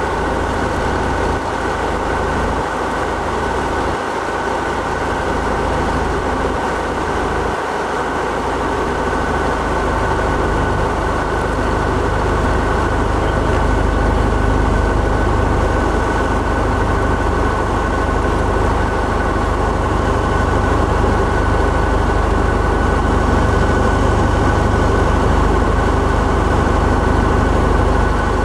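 Cessna 172's engine and propeller droning steadily, heard inside the cabin along with airflow noise. The low rumble grows stronger about a third of the way in.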